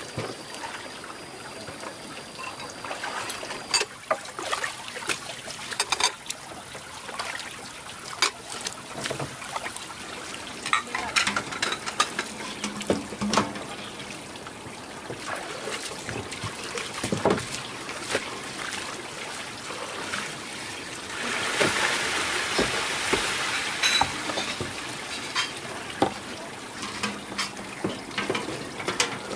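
Water trickling and splashing, with frequent light knocks and clinks of things being handled. A louder rush of water comes about three-quarters of the way through.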